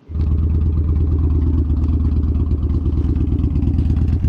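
Yamaha Bolt motorcycle's air-cooled V-twin engine starting and at once settling into a steady idle, a loud even low pulse.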